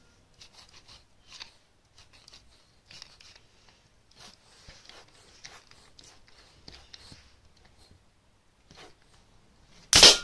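Cat playing on a carpet: faint scattered scratches and rustles of paws and fur, with a short loud scuff near the end.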